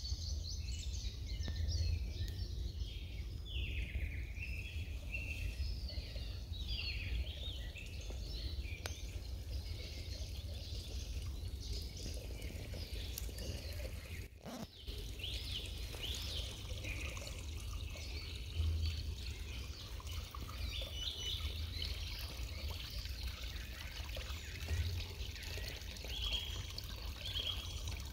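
Small woodland stream trickling and gurgling, with a steady low rumble underneath.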